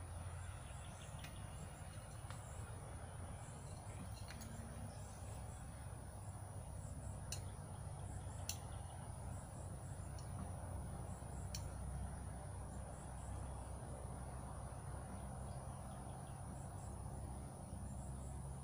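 Insects trilling steadily at a high pitch, with small repeated chirps over it. A few light clicks come through, over a low steady rumble.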